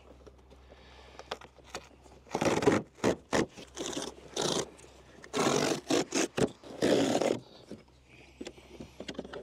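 Cardboard packaging of a Starlink dish box being torn and pulled open: several scraping, tearing bursts from about two seconds in, then small taps and rustles near the end.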